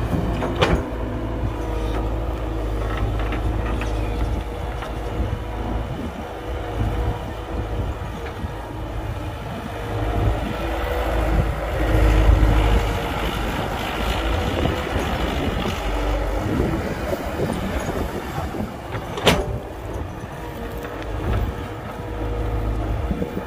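Diesel engines of a Cat E120 excavator and a Hyundai dump truck running steadily, a low rumble with a steady whine over it, swelling about ten to thirteen seconds in. Two sharp knocks sound, one about a second in and one near the end.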